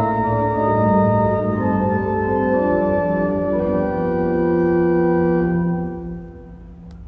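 Organ music: slow, held chords that fade out about six seconds in.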